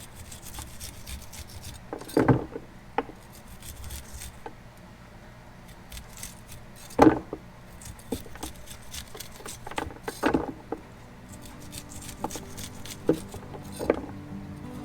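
Knife scraping kernels off cooked, cooled ears of sweet corn in irregular strokes, with louder scrapes about two, seven and ten seconds in.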